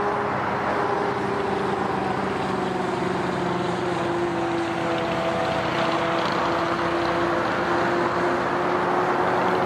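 Jet airliner's turbofan engines running at taxi power: a steady rush with several whining tones that drift slowly lower in pitch.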